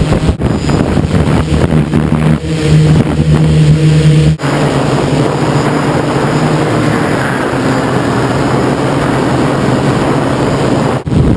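Electric motors and propellers of a DJI F550 hexacopter running in flight, heard from the camera mounted on the drone: a loud, steady hum over rushing noise. About four seconds in the sound cuts off abruptly and resumes noisier and higher.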